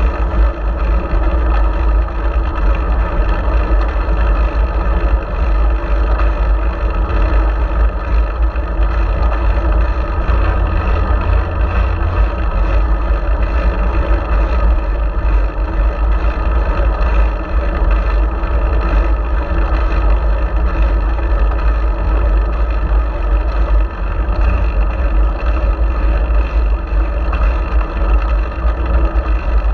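Wind buffeting a GoPro Hero4's microphone while riding a bicycle: a loud, steady low rumble with an even hiss above it.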